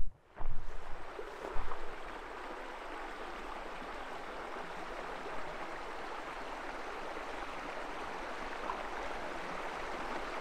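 A stream rushing steadily, an even wash of flowing water. There are a few thumps in the first two seconds.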